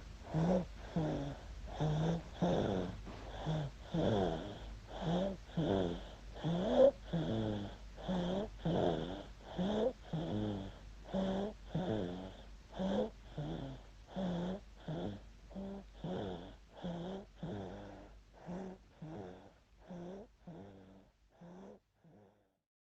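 Baby snoring: fast, even, wheezy breath sounds, about two a second, fading out near the end.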